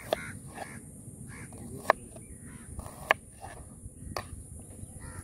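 Kitchen knife slicing through onion and striking a plastic cutting board: a few sharp taps roughly a second apart. Crows caw in the background.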